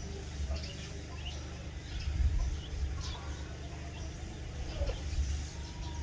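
Chicks peeping in short, scattered high chirps, with a hen's occasional low clucks, over a steady low rumble.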